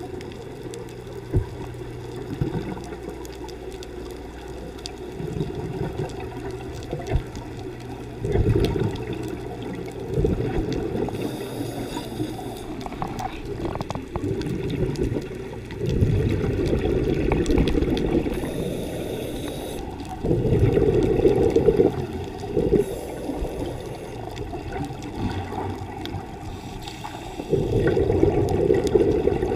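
Scuba diver's breathing heard underwater through a regulator: a faint hiss as air is drawn in, then a loud bubbling rumble of exhaled air lasting a second or two. The cycle comes several times.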